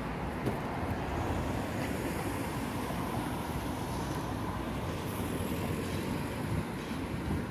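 Steady outdoor town ambience: a low rumble of traffic with no distinct events standing out.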